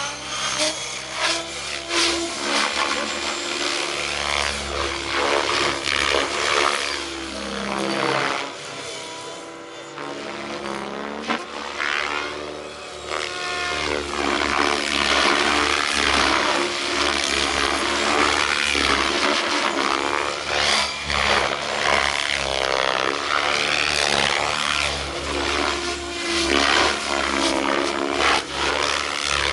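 700-size RC helicopter flying 3D aerobatics: the rotor and motor whine sweeps up and down in pitch over and over as it flips and swings through manoeuvres, quieter for a few seconds around ten seconds in.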